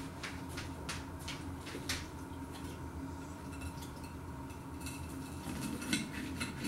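A table knife clinking and scraping on a ceramic plate as battered, cheese-filled Spam bites are cut open. There are several light clicks in the first two seconds and more near the end.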